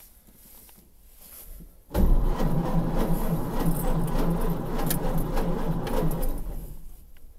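Ford Model A's starter cranking its four-cylinder flathead engine for about four seconds without it firing, starting suddenly about two seconds in and dying away near the end. The engine gets no spark because of a broken wire at the distributor contact point.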